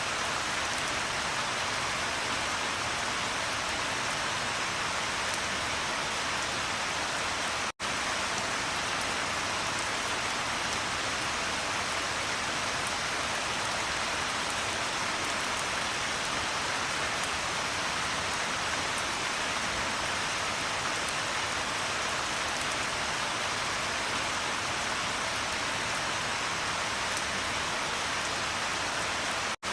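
Steady, even rain falling on a surface, with a dense patter of drops. The sound cuts out for an instant about eight seconds in, then carries on unchanged.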